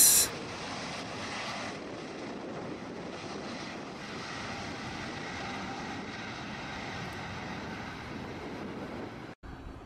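Airliner jet engines running steadily, heard from inside the passenger cabin as an even rushing drone with a faint whine over it. The sound drops out briefly near the end.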